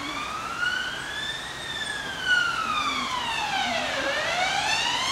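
An emergency vehicle's siren wailing. Its pitch rises, sinks slowly to a low point about four seconds in, then climbs again.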